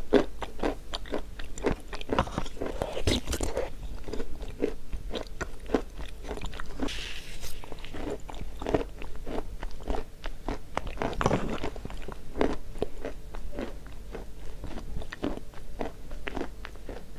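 Close-up chewing and biting of chalk: a steady run of dry crunches and small clicks.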